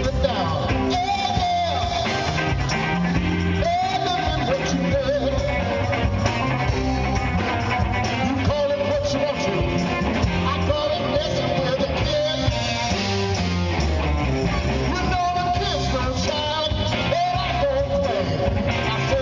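Live rock band playing: drums, bass and electric guitar in a steady groove, with a lead melody of held, bending notes over the top.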